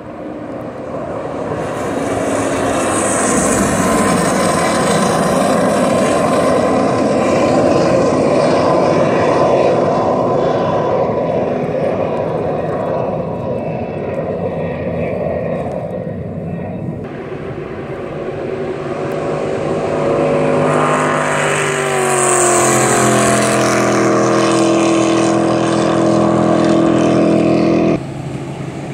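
Racing jet boats running at speed, with loud engines and the rush of water and spray. About twenty seconds in, a boat's engine note falls slightly in pitch as it passes, then the sound cuts off suddenly near the end.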